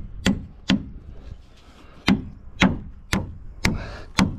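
Claw hammer nailing a wooden roof batten to the counter-battens. Two sharp blows, a pause of over a second, then five more at about two blows a second.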